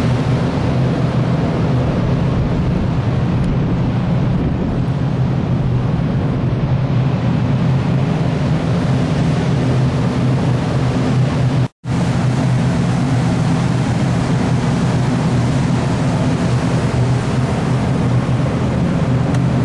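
Steady drone of a ship's machinery and ventilation: a low hum made of several steady tones over a rushing noise. It cuts out for an instant a little past halfway.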